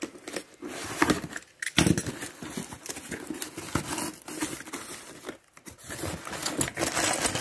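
Irregular rustling and crinkling with light knocks and clicks: plastic packaging and parts being handled and rummaged through.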